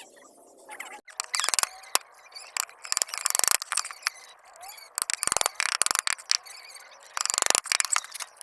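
Lovebirds calling in repeated bursts of raspy, rapidly pulsing squeaks.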